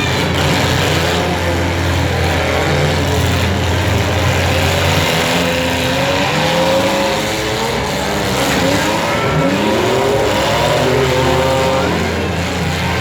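Several compact demolition derby cars' engines running and revving at once, their pitches rising and falling over one another.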